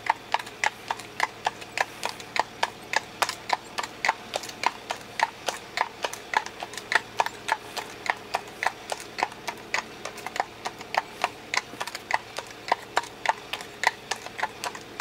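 Hoofbeats of a ridden Irish cob gelding: a steady clip-clop, about three beats a second.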